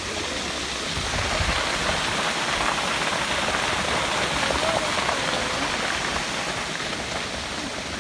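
Stream water rushing in a steady hiss, a little louder from about a second in.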